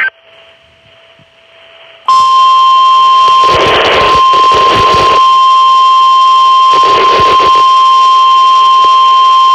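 NOAA Weather Radio's warning alarm tone for an Emergency Alert System special marine warning: after about two seconds of faint hiss, a single steady, loud high tone comes on and holds. Twice it is roughened by bursts of noisy static.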